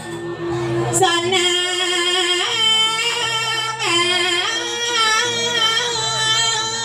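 A high voice singing a phrase of long, wavering held notes over steady instrumental accompaniment.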